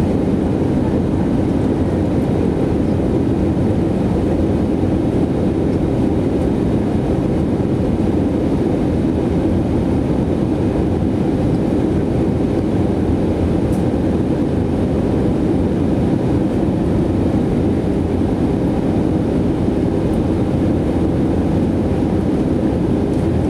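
Airbus A320neo cabin noise heard from a window seat over the wing: its Pratt & Whitney geared turbofan engines and the airflow make a steady low rush with a faint steady hum in it, unbroken throughout, during the descent to land.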